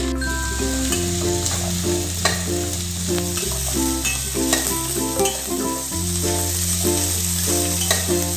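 Chopped pumpkin, onion and curry leaves sizzling in a steel pan as they are stirred, with a few sharp clicks of the spoon against the pan. Background music with a slow stepping bass line plays over it.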